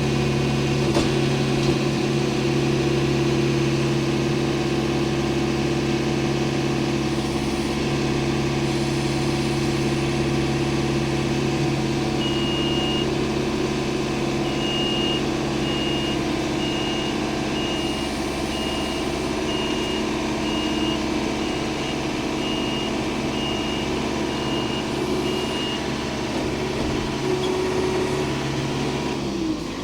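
An engine running steadily while a log is lowered onto a sawmill bed. A high beep repeats about every second for a stretch in the middle, and the engine winds down and stops at the very end.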